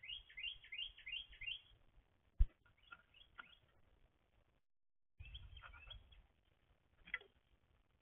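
A songbird singing a quick series of five down-slurred notes, about three a second, followed by scattered short chirps and calls. A single sharp knock about two and a half seconds in is the loudest sound, and about a second of low rustling comes with the calls a little past the middle.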